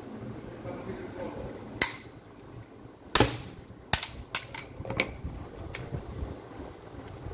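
Small hammer striking the long arm of an Allen key clamped in a cordless drill's keyless chuck, knocking the chuck loose to unscrew it from the spindle: about half a dozen sharp metal strikes, the loudest about three seconds in.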